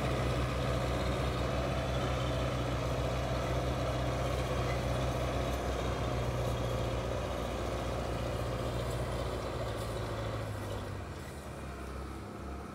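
Tractor diesel engine running steadily under load, hauling a heavily laden sugarcane trolley across soft ploughed ground. It grows quieter over the last few seconds as the tractor moves off.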